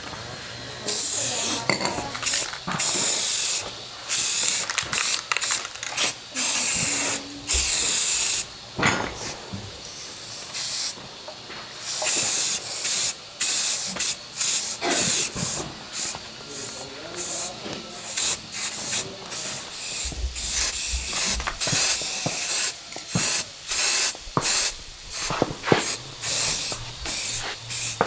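Spraying hiss in many short bursts, each under about a second, starting and stopping abruptly with brief gaps between.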